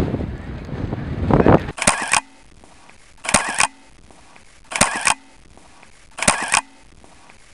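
Wind buffeting the microphone for the first second or so. Then a camera shutter sound four times, evenly spaced about a second and a half apart, each a quick double click.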